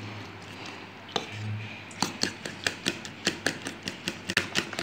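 Metal utensil beating raw eggs with chopped onion and coriander in a ceramic bowl: it clinks against the bowl in a rhythm, sparse at first, then a steady run of about four to five clinks a second from about two seconds in.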